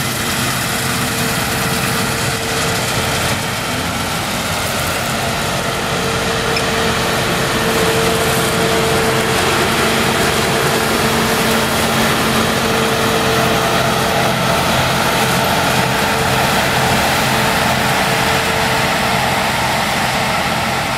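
Claas Lexion 580 combine harvester running while harvesting grain: steady engine and machine noise with a steady whine over it, a little louder from about six seconds in.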